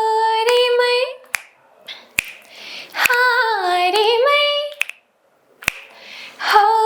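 A woman singing a Nepali folk tune unaccompanied in long held notes. There are three phrases with short breaks between them, and the middle phrase dips and rises in pitch. Sharp clicks sound in the breaks.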